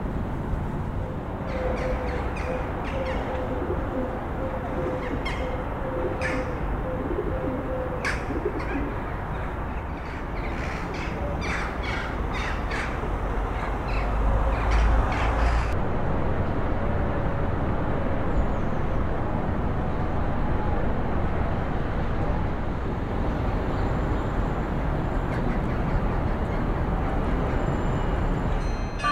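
Outdoor ambience: a steady low rumbling background with birds calling, their short sharp chirps coming mostly in the first half.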